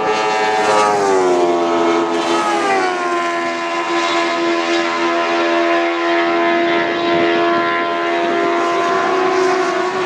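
Open-wheel formula race cars at full throttle going past and pulling away down the straight. Their high engine note drops in pitch over the first few seconds, then holds steady as they draw away.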